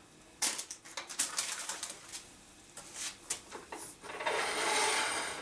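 Plastic protective covers being pulled off a woodturning lathe: a string of short crinkling clicks, then a steadier rubbing sound from about four seconds in.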